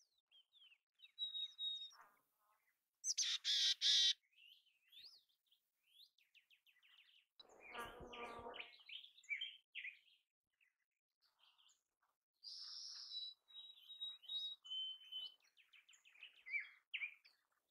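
Mountain chickadees calling: short chips and high, steady whistled notes, with two louder raspy calls about three and eight seconds in.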